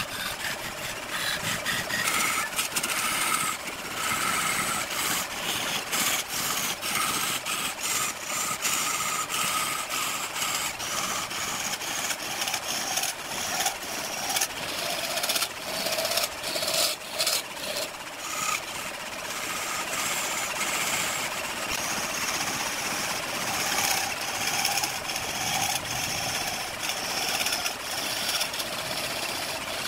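Hand-held turning tool cutting a large log spinning on a wood lathe: a steady hissing scrape as the edge peels off shavings, with rapid irregular ticking and a faint whine that comes and goes.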